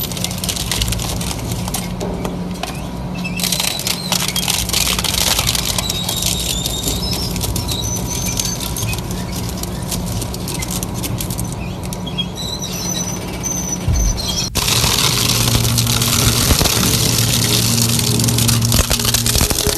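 Industrial crushing or shredding machine running under load. Its motor hums steadily while material crackles and breaks, with short high squeals in the middle. The sound changes abruptly about two-thirds of the way through to a louder, steadier grinding.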